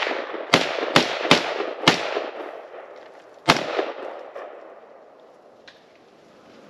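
Gunshots from a deer hunter firing at a buck: four shots in quick succession, then a fifth about a second and a half later, each ringing out with an echo.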